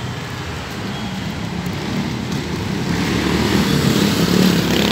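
Road traffic going by, with a motor vehicle passing close and its engine growing louder through the second half.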